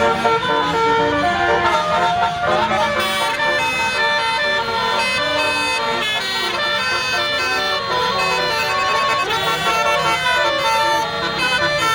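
Bus telolet horn (a Basuri multi-tone musical air horn) playing a tune without pause, its notes stepping up and down with several sounding at once.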